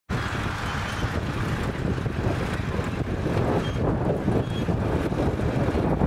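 Engine of a vintage International crawler tractor running steadily as it pulls a trailed plough through stubble.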